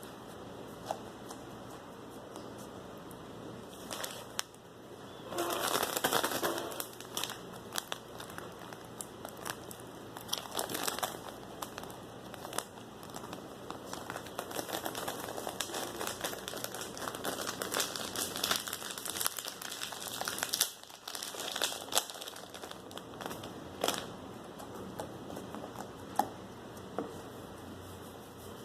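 Homemade slime worked by hand, giving a dense run of small crackles, clicks and pops. The crackling grows louder for a couple of seconds about five seconds in, and again in short bursts later on.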